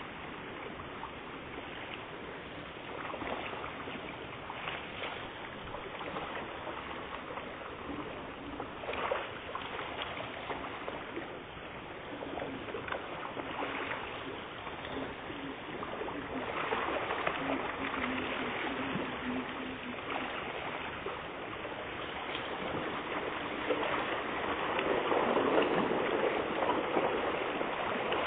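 A dense crowd of common carp splashing and churning at the surface of a pond, growing louder and busier near the end.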